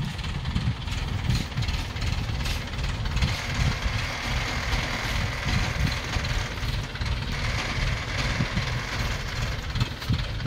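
Diesel engine of an ACE 12XW pick-and-carry (Hydra) crane running steadily while the crane holds a diesel generator set on its hook.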